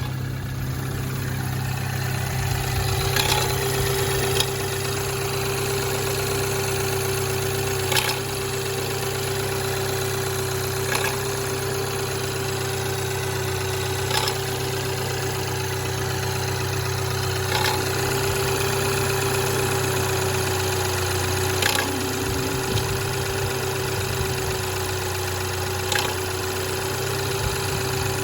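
BMW B48 2.0-litre turbocharged four-cylinder idling after a cold start, with a steady whine over the engine hum. A sharp click or knock sounds every three to four seconds: the extraneous noise this 115,000 km engine is recorded for.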